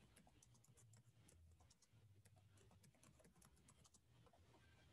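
Faint typing on a computer keyboard: quick, irregular key clicks over a faint low hum.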